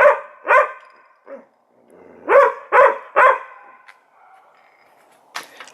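Dog barking: two quick barks, then three more about two seconds in.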